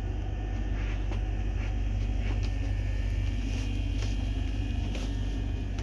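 A steady low rumble, with a few faint short clicks or knocks over it.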